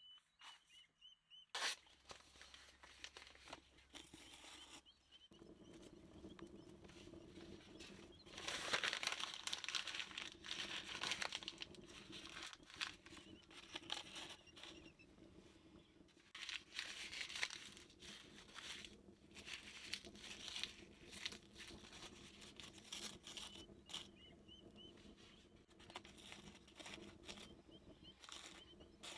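Wind and rain outdoors: an irregular crackling patter that swells in surges, loudest about nine seconds in.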